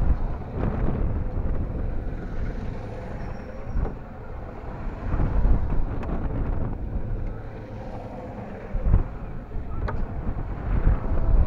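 Wind buffeting the camera's microphone as the rider's car swings around on a circling amusement-park airplane ride: a heavy low rumble that swells and eases in gusts. A few sharp knocks sound through it, about a second in, near the middle and near the end.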